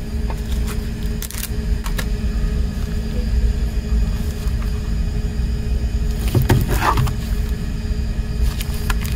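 Steady low rumble and hum, with a few light taps and crinkles from a shrink-wrapped CD case being handled; a short burst of plastic rustling comes about two-thirds of the way in as the case is turned over.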